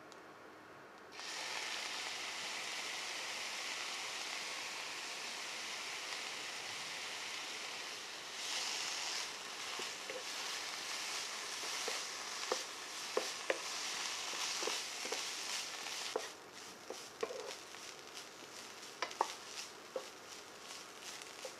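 Julienned carrots and cod roe sizzling in a nonstick frying pan: a steady sizzle starts about a second in, with scattered sharp pops and ticks from the middle on as the mixture is stirred. Near the end the sizzle drops away, leaving intermittent ticks of stirring.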